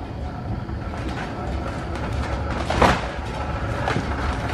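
Hand pallet jack loaded with stacked plastic produce crates being rolled out of a walk-in cooler: a steady rolling rumble with scattered clicks and rattles, and a brief louder noise about three seconds in.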